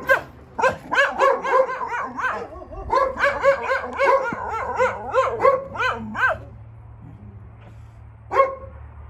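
Rajasthani shepherd dog barking in a fast, unbroken run of barks for about six seconds, then a pause and one last bark near the end.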